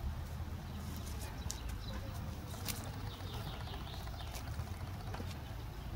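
Outdoor ambience: a steady low rumble with faint bird chirps about three seconds in and a few light clicks.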